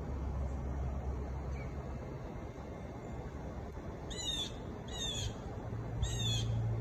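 A bird calling three times, short calls about a second apart in the second half, over a steady low rumble.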